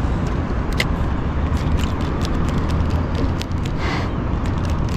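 Steady low wind rumble on the microphone, with scattered light clicks from a fishing reel being cranked while a bass is on the line.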